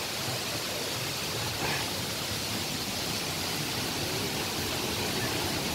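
Small waterfall rushing steadily, an even wash of falling water.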